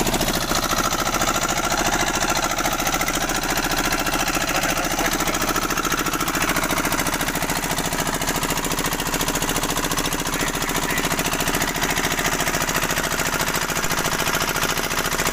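Small engine aboard a fishing boat running steadily, with a fast, even pulsing beat.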